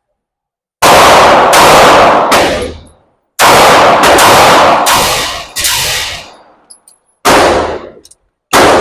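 Handgun shots in an indoor range, about nine at an uneven pace with two short pauses, each crack trailing off in the room's echo.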